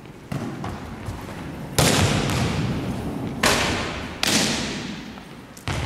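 Volleyball being struck and bouncing on a hardwood gym floor: about five sharp smacks, each trailing off in the hall's echo.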